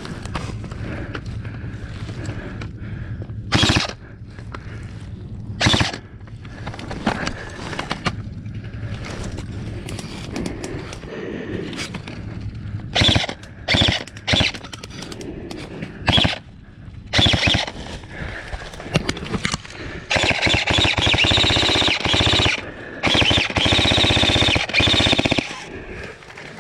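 Airsoft guns firing: scattered short bursts through the first half, then two long full-auto bursts of rapid fire near the end.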